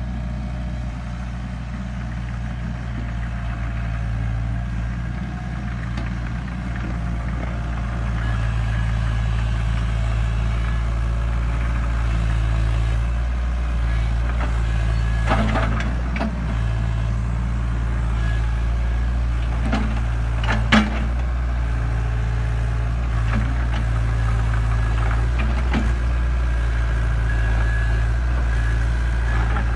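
Takeuchi TB175 compact excavator's diesel engine running steadily. A few sharp knocks come about halfway through, the loudest one about two-thirds of the way in.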